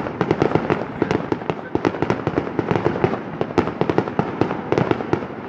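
Aerial fireworks bursting overhead: a dense, continuous run of sharp pops and crackles, many a second, without a pause.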